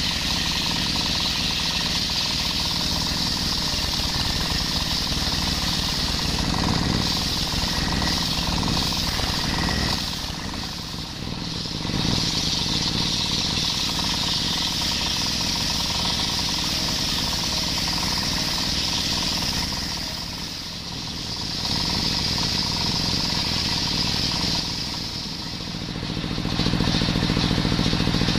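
Engine-driven table circular saw ripping coconut-wood beams lengthwise, a steady high-pitched cutting noise over the running engine. The cutting drops away briefly about ten and twenty seconds in, and again near the end, leaving the blade spinning free with the engine running on.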